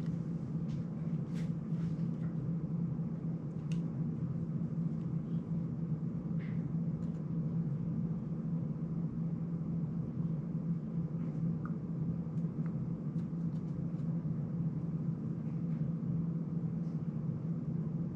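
Steady low hum of room background noise, with a few faint clicks and taps of a small FPV drone's frame and parts being handled.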